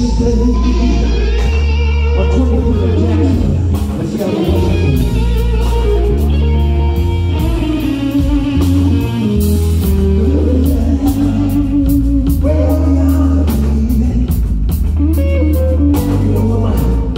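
Live blues-rock band playing: a loud electric guitar with bent notes over bass and drums, and a man singing into a microphone part of the time.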